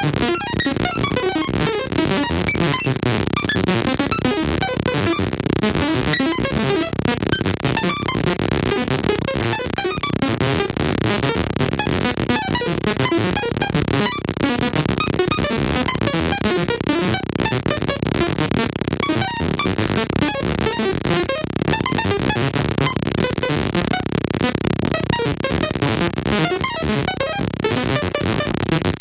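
Sci-fi style computer-calculating sound effect: a dense, unbroken stream of rapid electronic blips and bleeps that jump about in pitch, at a steady level.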